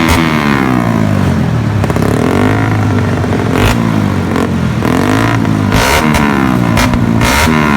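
Engine being revved repeatedly and loudly, its pitch climbing and falling several times.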